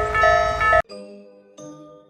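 Cartoon railroad level-crossing warning bell ringing about twice a second over a low train rumble, cutting off suddenly just under a second in. A few soft chime notes follow near the end.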